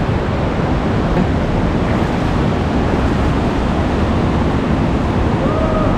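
Loud, steady rush of fast-flowing canyon river water close to the microphone. A short gliding call from a person's voice near the end.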